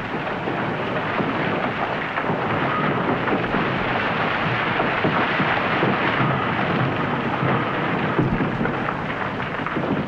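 Suitcase-sized ore rocks rumbling and clattering down a chute through a hanging curtain of heavy chains into a jaw crusher's hopper: a dense, steady rumble full of small knocks.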